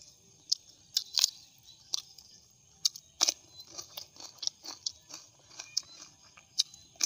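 Close crunchy chewing and bites of fresh cucumber, picked up by a lapel microphone. Sharp crisp crunches come about a second in and again just after three seconds, followed by a run of smaller chewing crunches.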